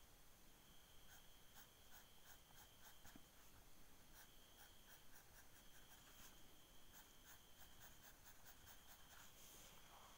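Graphite pencil scratching on paper in quick, short hatching strokes, several a second with brief pauses, faint.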